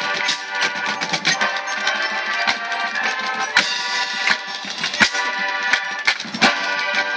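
Marching band playing: brass and winds holding sustained chords, punctuated by several sharp percussion hits.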